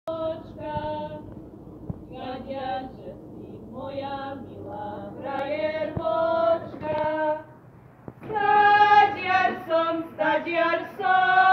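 Three women singing a Slovak folk song unaccompanied, in long held and sliding notes. The singing dips briefly just before eight seconds in, then comes back louder.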